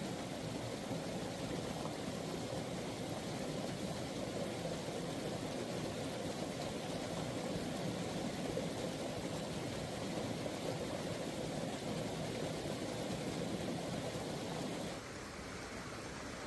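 Steady rushing of a fast stream flowing over rocks; about fifteen seconds in it drops a little and sounds thinner.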